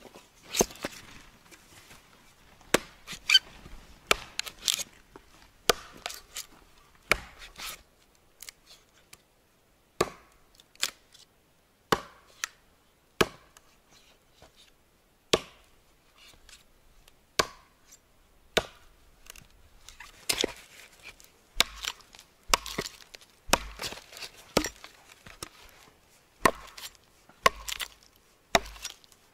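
Hatchet chopping into a split firewood log: a string of sharp, irregular wood-on-steel chops, about one a second at first and coming faster in the second half.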